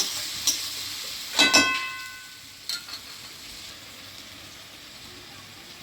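Onion and garlic paste sizzling in hot oil in a metal kadai. About a second and a half in, a utensil clangs against the pan with a brief ringing, and then the sizzle settles quieter.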